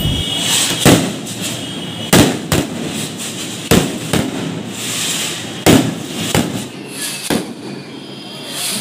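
Aerial fireworks bursting overhead: about eight sharp bangs at irregular intervals, with crackling and hissing between them.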